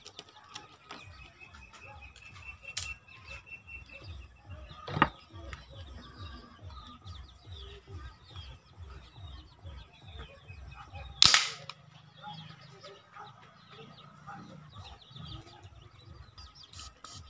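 A homemade alcohol-fired PVC toy gun, built like an FX M3, fires one 8mm steel ball: a single sharp shot about eleven seconds in. A softer knock comes around five seconds in.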